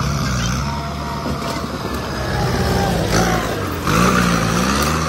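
Kubota M8540 tractor's four-cylinder diesel engine running under load while its front blade pushes loose soil, the engine pitch wavering and rising slightly near the end. About three seconds in, a louder rush of soil and stones crunching under the blade and tyres comes in over it.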